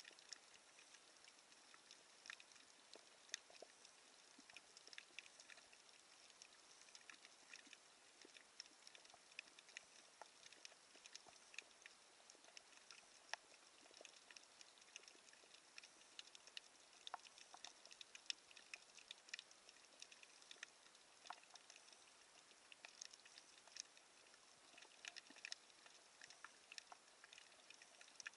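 Faint underwater crackle: many irregular, sharp clicks, dense and uneven throughout, over a low hiss.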